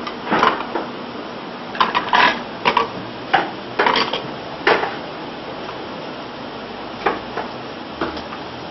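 Kitchen utensils clattering: a metal spoon knocking and scraping against a bowl and pots, about a dozen sharp clinks in the first five seconds and a couple more near the end, over a steady hiss.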